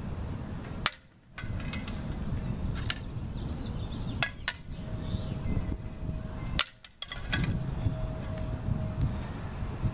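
Training swords and a metal buckler knocking together in a fencing exchange: a few sharp clacks with a short ring, one about a second in, a quick pair about halfway, and another a little later, over a steady low background rumble. The sound drops out briefly twice.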